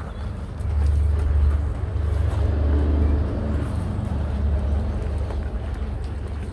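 Low, steady outdoor rumble that comes up about half a second in and dominates throughout.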